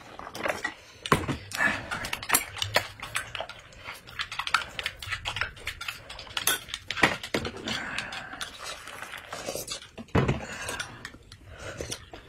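Metal spoons clinking against glass mugs as drinks are stirred: many short, irregular clinks. Near the start comes a stream of hot water poured from an electric kettle into a glass.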